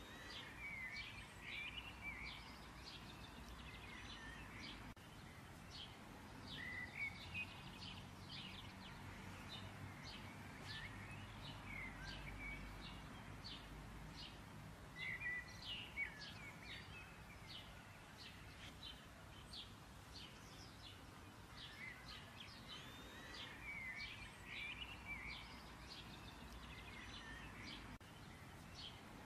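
Small birds chirping and twittering over and over, faintly, over a low steady hum.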